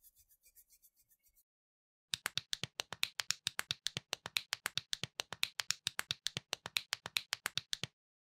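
Plastic building bricks snapping together in a quick, even run of sharp clicks, about six a second, as a model is assembled piece by piece; the clicking stops abruptly near the end.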